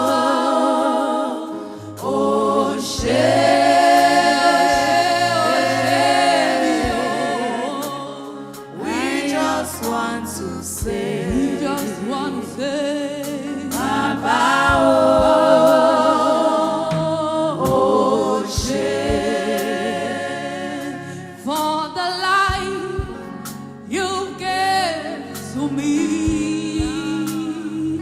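Gospel choir singing a praise song, voices held on long notes with vibrato, over a bass line with some percussion strokes.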